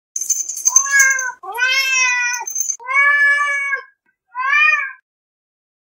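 A domestic cat meowing four times: drawn-out calls, each rising and falling in pitch, the last one shorter. A high, thin ringing sound plays under the first call.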